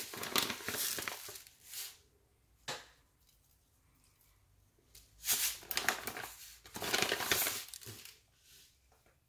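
Chia seeds being shaken out over a salad, heard as four bursts of dry rustling with short quiet gaps between them.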